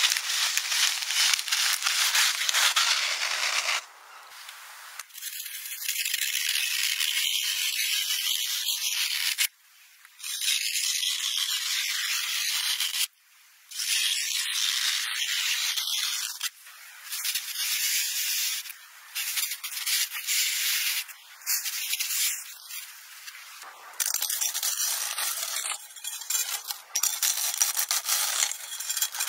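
A run of short scratchy, crunchy sounds, each cut off abruptly before the next: old paint cracking and flaking off a pole, a gouge scraping grooves into green floral foam, and near the end a blade crushing through a block of dry instant noodles.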